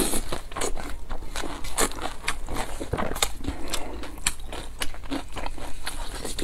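Close-miked eating sounds: a steady run of crunchy bites, chewing and wet mouth clicks, several a second.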